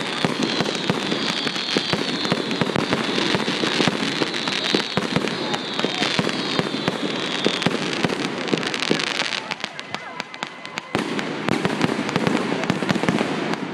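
Aerial fireworks going off: a dense stream of crackling pops and bangs from rising comets and bursting shells, with a high wavering whistle through the first half and a brief lull about ten seconds in.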